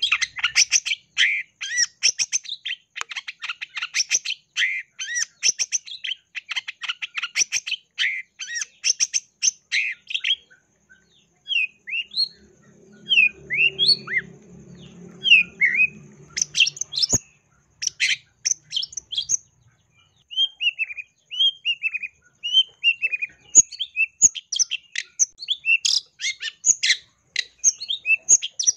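Long-tailed shrike (cendet) singing a long run of fast, scratchy chattering song packed with mimicked notes. About a third of the way in it slows to spaced, slurred whistled notes, then breaks back into dense chatter near the end.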